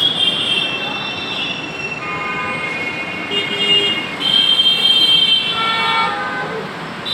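Metro train running along the station platform, with high metal-on-metal squealing that comes and goes in shifting tones over the steady rumble of the train.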